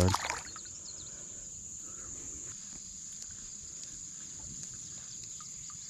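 Insects chirring in a steady, high-pitched, unbroken drone over a low, quiet background.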